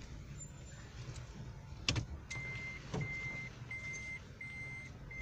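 Car engine idling, heard from inside the cabin. About two seconds in there is a click, then an evenly repeating high beep, about three beeps every two seconds: the car's reversing warning as it is backed into a parking space.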